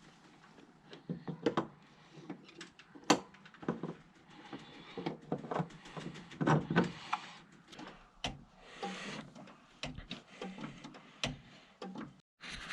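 Irregular clicks, knocks and scraping of hand tools and metal parts being handled while brake lines are fitted to a master cylinder.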